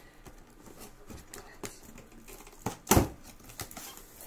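Cardboard box and packaging being handled while a kettle is unpacked: scattered light clicks and rustles, with one loud knock about three seconds in.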